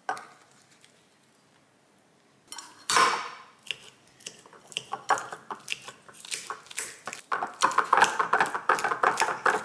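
A metal spoon scraping and clinking against a ceramic bowl as avocado is scooped and mashed. After a quiet start there is one loud scrape about three seconds in, then scattered clicks, and a fast run of scraping taps from about seven seconds as the avocado is mashed.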